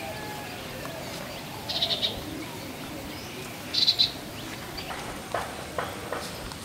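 A bird calling: a short, high, rapidly pulsed chattering call, heard twice about two seconds apart, over faint outdoor background sound, with a few faint knocks near the end.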